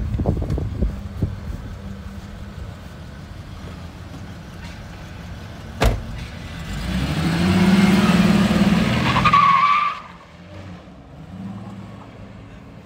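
A Ford Ranger pickup's door shuts with a single thud, then its engine runs up loudly for about three seconds as it pulls away, cutting off abruptly.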